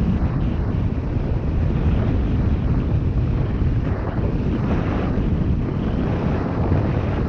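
Wind rushing over a GoPro's microphone while skiing downhill: a steady, loud low rumble, with skis hissing over groomed snow that swells now and then.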